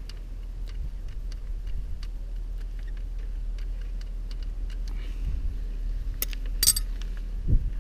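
Scattered light clicks and ticks of hands working loose the plastic radiator shroud and its screw on a motorcycle, with a sharper crackle about six seconds in and a dull knock near the end, over a steady low rumble.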